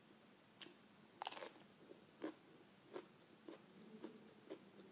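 Raw purple cabbage crunching as it is chewed, with a louder crunch just over a second in and then a soft crunch every half second or so.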